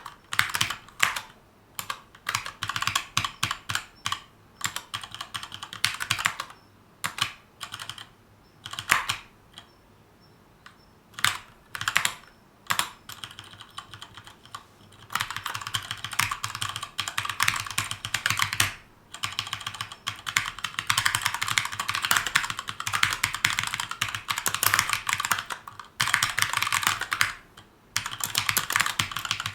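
Keychron K2 mechanical keyboard with brown switches being typed on: keystroke clicks in short bursts with brief pauses, a quiet gap of a second or two about a third of the way in, then a long stretch of fast, continuous typing broken by one short pause near the end.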